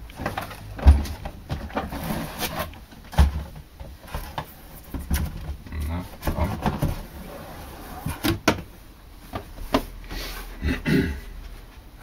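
Cardboard box handled and its lid lifted away: scraping cardboard, irregular knocks and a few dull thumps, the firmest about a second in and about three seconds in.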